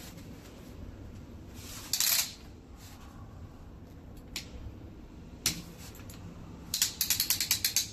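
A folding umbrella stroller being handled. There is a short rustle about two seconds in, then single clicks, and near the end a quick run of about ten clicks.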